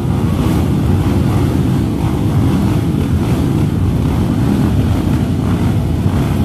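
A pack of motocross dirt bikes running together on the start line, their engines blending into one loud, steady drone.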